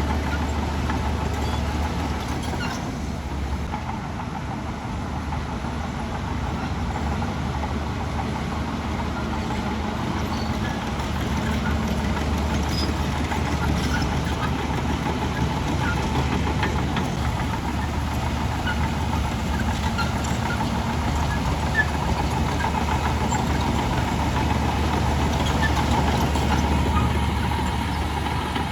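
Heavy diesel engine of earth-moving machinery running steadily, a deep low drone that swells a little in level now and then.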